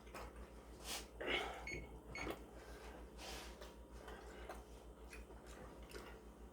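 Faint sounds of a person biting into and chewing a slice of frozen-style pepperoni pizza, a few soft bites and mouth noises spaced apart, over a low steady hum.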